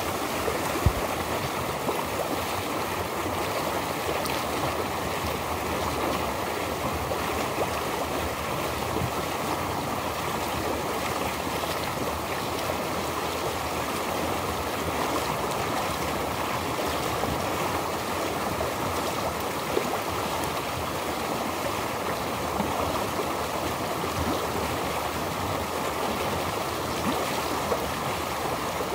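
Steady rush of flowing water from a mountain stream, with one sharp knock about a second in.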